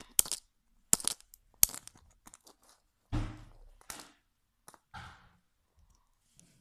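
Crackling and cracking of a toy surprise ball's plastic wrapping being handled and pulled at: sharp separate cracks about a second apart, with a duller thump about three seconds in.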